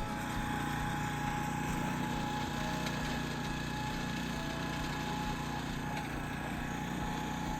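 Gas engine of a lawn aerator running steadily under load.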